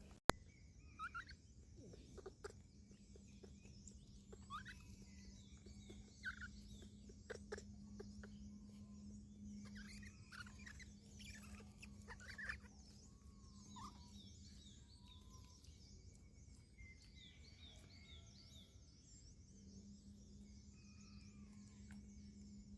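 Faint, scattered high-pitched chirps and short rising squeaks from small animals, over a low steady hum that drops out for a few seconds past the middle. There is a sharp click just after the start and a few soft knocks.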